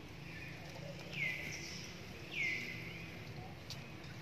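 Infant long-tailed macaque's shrill distress squeals: two short calls falling in pitch, about a second apart.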